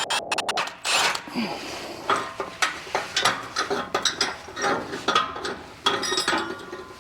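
Hand ratchet wrench clicking in short irregular runs while exhaust bracket bolts are loosened, with small metallic clinks between the strokes.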